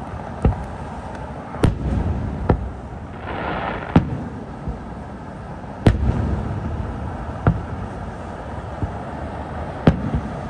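Aerial firework shells bursting in the distance: about seven sharp bangs at irregular intervals of one to two seconds, each trailed by a low rumbling echo, with a brief hiss a little after three seconds in.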